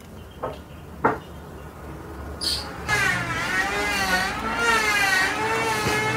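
Two light taps as granules are funnelled into a plastic syringe tube. Then, about three seconds in, a loud droning hum starts and holds, its pitch wavering up and down in a regular wobble.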